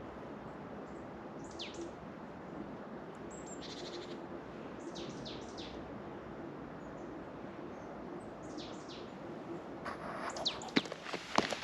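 Songbird calling: short, high, downward-sweeping notes in small groups of two or three, repeated every couple of seconds over a steady background hiss. About ten seconds in, footsteps on a trail start up.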